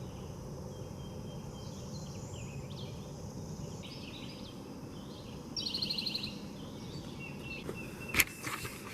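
Wild birds calling in woodland over a steady background outdoor noise. There are scattered short high calls, a fast trill of repeated notes a little past halfway, and a sharp click near the end.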